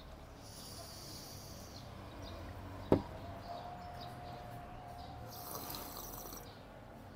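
Hot plain tea poured from an enamel teapot into a small cup with a brief hiss, then one sharp knock on the table about three seconds in, and a hissing slurp of the hot tea near the end.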